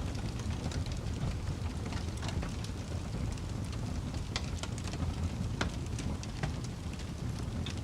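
Fire burning with a steady low rumble and scattered sharp crackles and pops.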